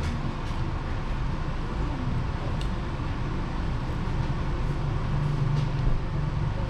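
A steady low rumble, with a few faint light clicks as the battery charger's clamp leads are handled.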